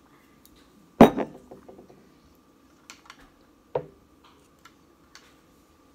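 Objects knocked down onto a stone tabletop at a meal: one loud knock with a short ring about a second in, a smaller knock just before four seconds, and a few light clinks between.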